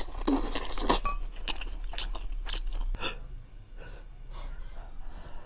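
Close-miked chewing and eating sounds of a person eating, with scattered sharp clicks that are thicker in the first three seconds and fainter after.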